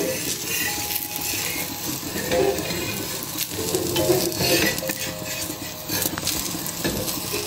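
A semolina cheela sizzling in oil on a hot tawa, while a perforated steel spatula scrapes and slides under it against the pan surface.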